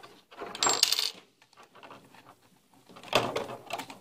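Small metal parts clinking and rattling in two bursts, one about half a second in and another about three seconds in. A rotary tool's collet and bit are being handled and fitted.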